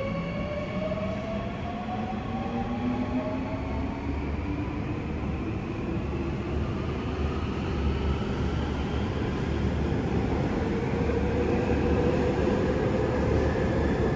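Seoul Metro Line 3 electric train pulling out of an underground station. Its traction motors whine in several rising tones as it picks up speed, over a steady rumble of wheels on rail.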